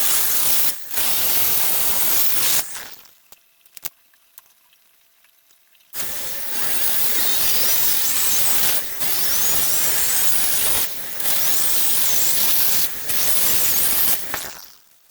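A handheld power tool working wood, running in loud bursts: one about three seconds long at the start, then after a pause a longer run of about nine seconds broken by short breaks, with a faint high squeal in the middle.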